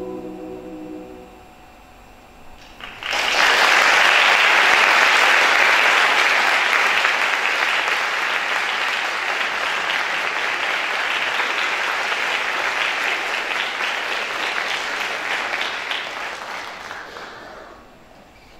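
A choir's last held chord dies away, then audience applause starts suddenly about three seconds in, goes on steadily, and fades out near the end.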